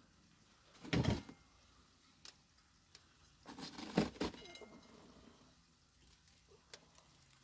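Two loud slurps of very hot tea from a cup, a short one about a second in and a longer one around four seconds in.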